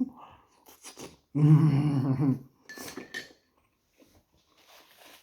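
A man's low, drawn-out 'mmm' of enjoyment while eating, held for about a second, with a few faint mouth noises around it.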